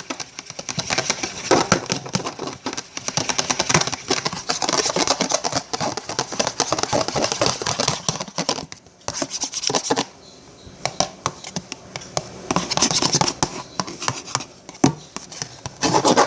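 Slime mixture being stirred very hard in a bowl: a fast, steady run of scraping and clicking, easing off briefly about ten seconds in.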